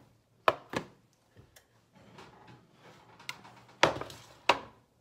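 Metal loaf pans of freshly baked bread knocking as they are set down on a glass-ceramic stovetop. A series of sharp knocks, the two loudest close together near the end.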